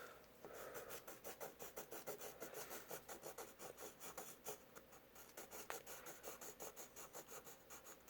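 Faint, quick back-and-forth strokes of a drawing tool scratching on paper, several strokes a second, with a short break about five seconds in.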